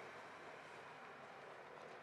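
Near silence: a faint, steady outdoor hiss with no distinct event.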